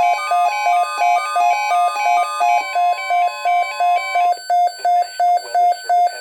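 Weather alert radio's alarm beeping rapidly, about three beeps a second, over NOAA Weather Radio's steady 1050 Hz warning alert tone, which cuts off about four seconds in. The alarm announces an incoming tornado watch alert.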